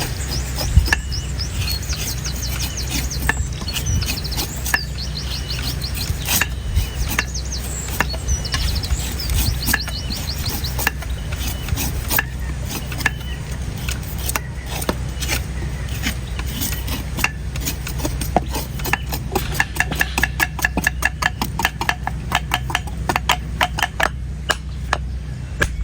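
A sharp knife chopping into the dry, hard husk of an old coconut: a steady string of sharp knocks that quickens into a fast run of strokes in the last third. Birds chirp in the background over a steady low hum.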